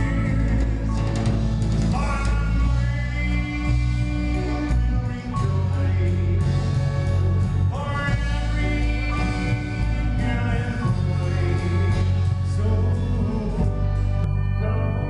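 A live band playing a song with singing over a heavy bass line.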